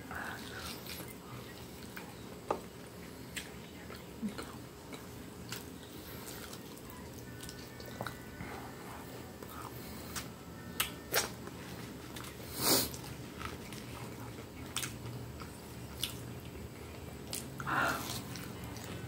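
Close-miked chewing and biting of breaded, fried chicken coxinhas: irregular mouth clicks and smacks, with a few louder ones, over a faint steady hum.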